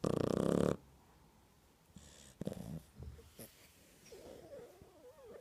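Two-month-old shar pei puppy snoring in its sleep: one loud, rattling snore lasting under a second at the start, a shorter, softer snore about two and a half seconds in, then a faint wavering sound near the end.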